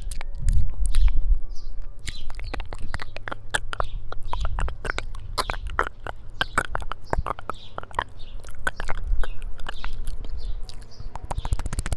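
Close-miked mouth sounds: a rapid, irregular run of wet lip smacks and tongue clicks, with birds chirping in the background.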